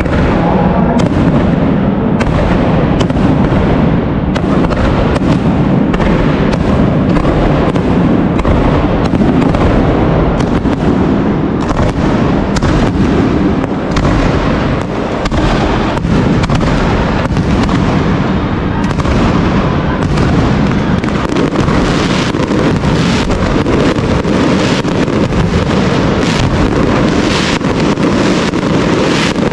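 Fireworks display: a continuous barrage of shell bursts and crackle, several bangs a second, growing denser in the second half.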